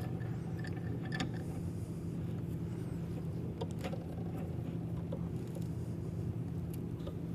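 A few faint clicks and taps from a clamp being handled and tightened down over a block, over a steady low background hum.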